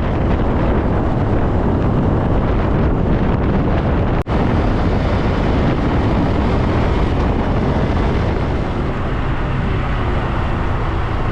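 Wind buffeting the microphone over a small motorcycle running on the road, as on a ride on a Honda CT125 Hunter Cub. The noise starts abruptly and holds steady, cutting out for an instant about four seconds in.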